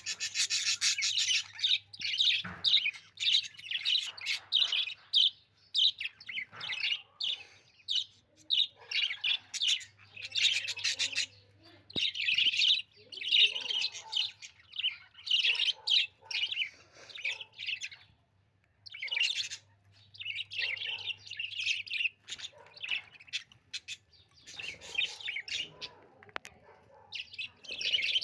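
Budgie chirping in rapid bursts of high, chattering tweets, with a short pause about two-thirds of the way through.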